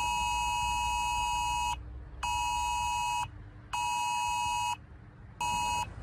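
UK Emergency Alert attention tone sounding from a smartphone: a loud two-tone alarm (the standard 853 and 960 Hz pair) blaring in an on-off rhythm of a long blast of about two seconds, then two one-second blasts with half-second gaps, and a brief blast near the end.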